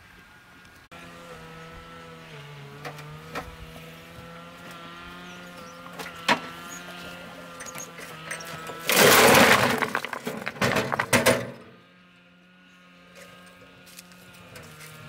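A loud rough crash lasting about two and a half seconds, with several sharp clatters inside it, like hard objects breaking or tumbling. A steady hum with a few held tones runs underneath, with scattered sharp clicks before the crash.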